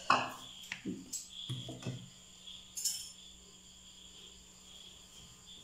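Crickets chirping steadily and faintly in the background. A sharp click at the very start and a few light knocks in the first two seconds come from plates or dishes being handled.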